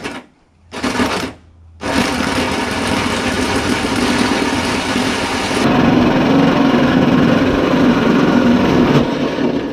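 Cordless drill driving a 76 mm hole saw through the sheet-metal front guard of a GQ Patrol: two short trigger blips, then a steady grinding cut from about two seconds in that turns lower and heavier a little past halfway, stopping near the end as the hole is cut through.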